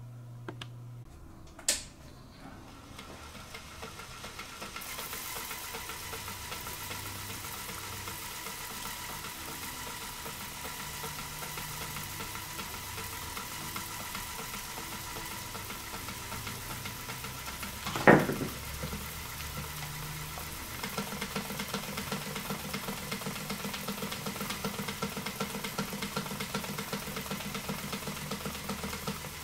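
Electric motor spinning the water-filled vortex rotor of a homemade Schauberger tornado generator: a steady motor hum and faint whine over churning water. There is a single sharp knock a little past halfway, and soon after a rapid rattling pulse sets in and carries on.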